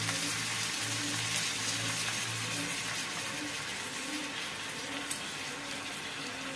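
Soaked raw rice sizzling in hot oil in a frying pan with chopped onion and garlic: a steady hiss that eases slightly.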